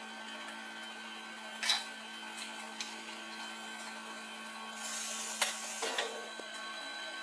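Small plastic action-camera accessories handled on a table: a light click about two seconds in, then a rustle and a couple of sharper clicks near the end, over a steady background hum.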